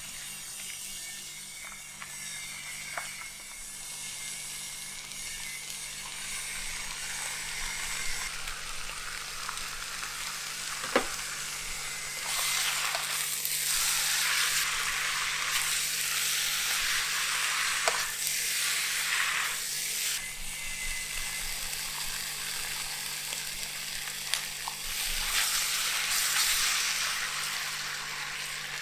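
Food sizzling in a hot pan as it is stir-fried, the sizzle swelling louder in waves. A few sharp taps of a utensil against the pan are heard.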